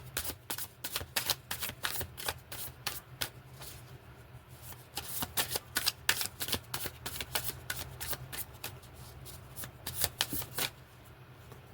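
A deck of tarot cards being shuffled by hand: a quick run of crisp card flicks and slaps that thins out and stops near the end.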